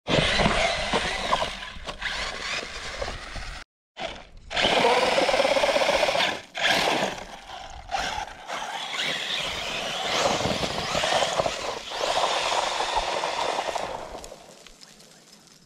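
Arrma Talion RC truggy's electric motor whining under throttle, with its tyres scrabbling and spraying loose volcanic gravel. The whine rises about five seconds in. The sound breaks off for a moment about four seconds in and falls away near the end.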